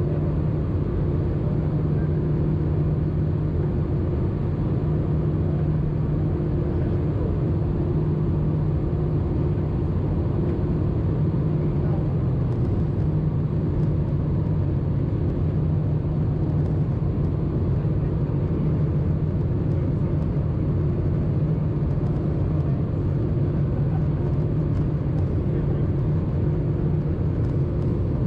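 Steady cabin noise inside an Airbus A320-214 in descent, heard at a window seat over the wing. Air rushes along the fuselage under a constant low hum from the CFM56 engines.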